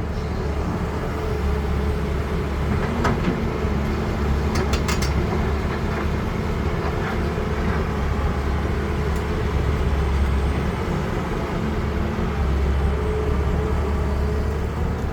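CAT 320D excavator's diesel engine running steadily under hydraulic load, a deep rumble with a held hum, with a few short metallic clanks about three and five seconds in.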